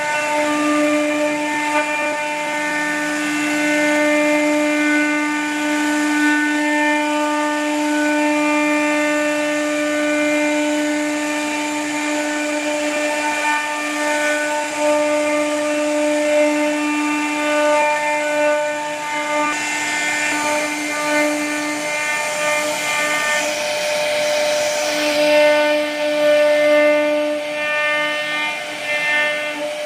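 A 1325 CNC router's spindle whines steadily while its bit cuts grooves and scrollwork into a solid wood door panel. The whine dips at times, and a hissier cutting noise builds in the second half.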